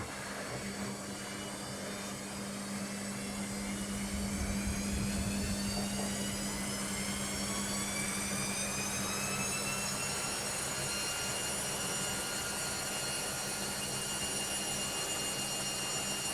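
Washing machine spinning up on its spin cycle: the motor and drum whine rises steadily in pitch for about ten seconds, then holds level at full spin speed over a constant low hum.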